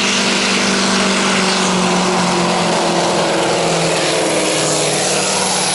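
Scania diesel engine of a modified pulling truck running flat out under full load, a loud steady drone as it drags the weight-transfer sled.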